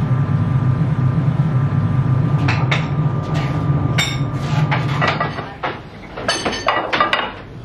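A steady low hum, with a run of sharp metallic clanks and clinks from about two and a half seconds in as heavy steel swing-bolt clamps on a cylindrical pressure vessel's lid are swung into place and fastened.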